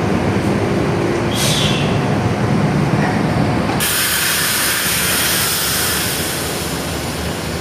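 Steady low rumble of heavy diesel buses and trucks on a ferry's lower vehicle deck, with a short hiss about a second and a half in and a steady airy hiss that starts suddenly about four seconds in.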